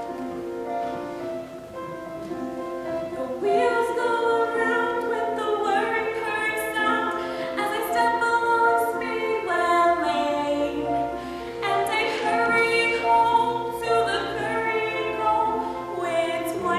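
Choral music: a held chord, then a choir of voices entering about three and a half seconds in and singing through changing notes.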